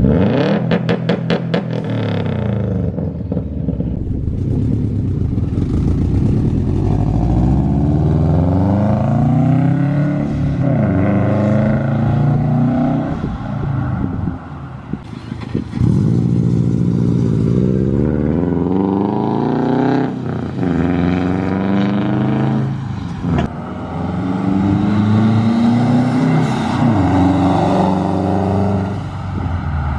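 Turbocharged flat-four engine of a Subaru WRX revving repeatedly through an aftermarket exhaust, first a single-exit Tomei Expreme Ti with a catless downpipe. After about fifteen seconds the sound changes to the same engine pulling hard through an Invidia Q300 exhaust, rising in pitch through the gears as the car accelerates past.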